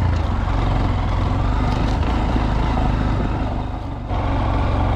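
Honda Monkey 125's single-cylinder four-stroke engine running under way. It dips in loudness briefly about four seconds in, then picks up again.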